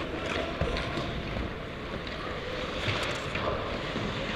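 Steady rush of wind on a helmet-mounted camera microphone as the wearer skates across an ice hockey rink, with a few faint clicks.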